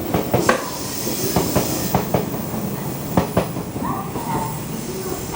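381-series electric train moving slowly through the platform, its wheels clacking irregularly over rail joints and points under a steady rumble and hiss.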